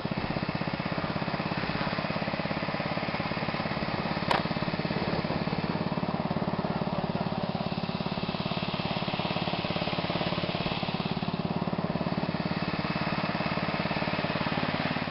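Racing lawn mower's small engine running at a steady speed, with one sharp click about four seconds in.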